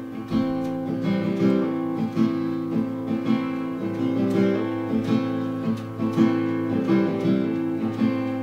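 Acoustic guitar playing a song's instrumental introduction: chords struck in a steady rhythm, about two strokes a second, each left ringing.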